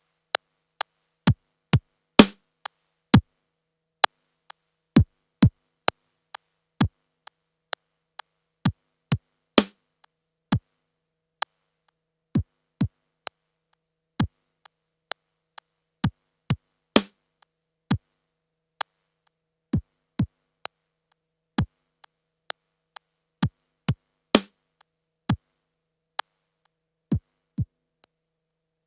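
Yamaha PTX8 electronic drum sounds played as a sequenced pattern through an Akai EX70C compressor. Short, dry hits with silence between them, including low drums that drop in pitch. A longer, brighter hit recurs about every seven and a half seconds as the pattern repeats.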